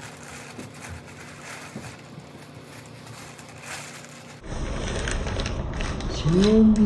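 Plastic packaging and clothing rustling and crinkling as items are handled, becoming suddenly louder about four seconds in. Near the end comes a short, rising, wordless vocal sound.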